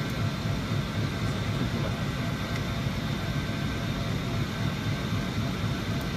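Steady low rumbling background noise, with no change and no distinct events.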